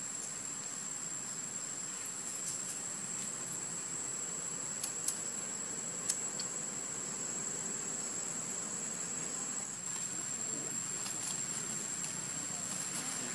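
A steady, high-pitched insect drone of crickets or cicadas holding one thin tone over a constant background hiss, with a few faint ticks about five and six seconds in.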